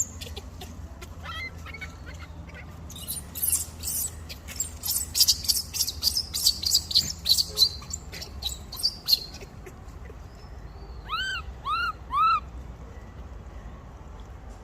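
Monkeys calling: a rapid run of high squeaks and chirps, then three short cries near the end, each rising and falling in pitch, about half a second apart.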